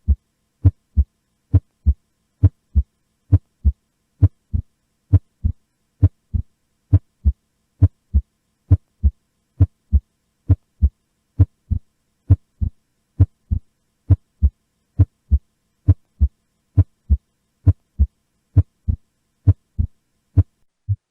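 Heartbeat as heard through a stethoscope: first and second heart sounds, each beat a pair of short low thuds (lub-dub), repeating evenly at about 70 beats a minute.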